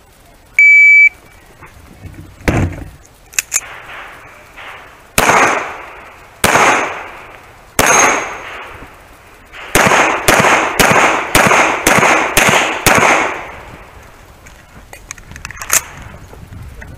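A shot timer beeps once, a steady high tone about half a second long, starting a pistol stage. A handgun then fires three shots a little over a second apart, followed by a fast string of seven at about two a second.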